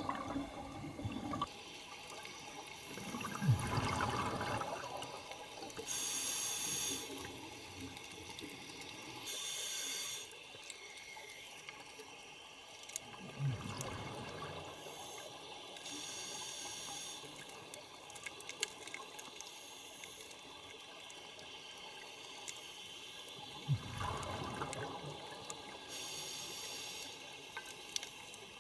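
Scuba diver breathing through a regulator underwater: exhaled air bursts out as bubbling gurgles three times, and between them come high hisses of air drawn in through the regulator.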